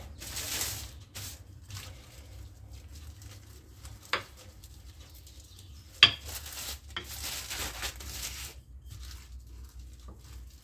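Rolling pin rolling dough out on plastic wrap, the film rustling and swishing under each pass, with two sharp knocks about four and six seconds in.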